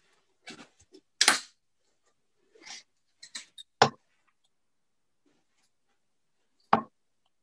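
Steel-tip darts striking a bristle dartboard: three sharp thuds two to three seconds apart, with fainter knocks and rustles between them.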